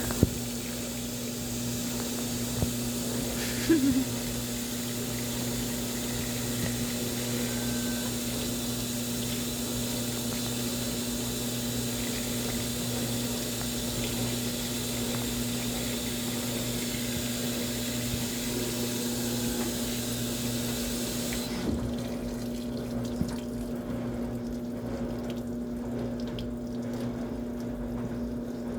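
Washing machine taking in water over a steady hum; the rushing water cuts off abruptly about three-quarters of the way through, leaving the hum and a few faint clicks.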